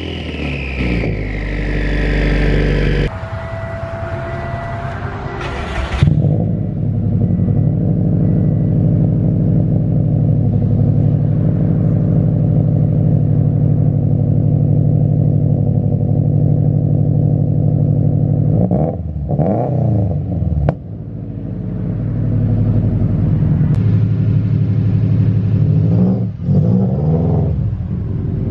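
Turbocharged Subaru WRX flat-four engine running through a catless, straight-through Tomei titanium exhaust while driving. The revs fall in the first few seconds, then hold a steady drone, rising and dropping again about two-thirds of the way through and once more near the end.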